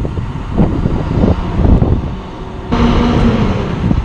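Wind rumbling on the microphone, then about two and a half seconds in a Pelco Spectra PTZ dome camera's pan-tilt motor starts up suddenly with a steady whirring hum: the camera is powering up and beginning to spin.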